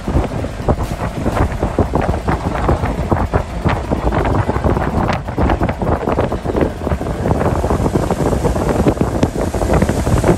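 Wind buffeting the microphone, a loud, fluttering rumble, over an old jeep's engine running as it fords a shallow river.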